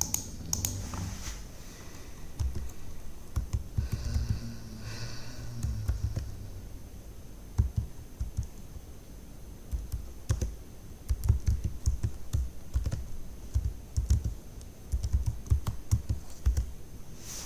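Computer keyboard typing and clicking in irregular bursts, with a faint steady high-pitched whine behind.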